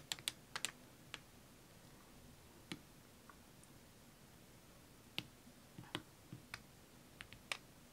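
Scattered faint clicks and ticks, about ten at irregular intervals, from a gloved hand gripping and tilting a wet paint-pour canvas.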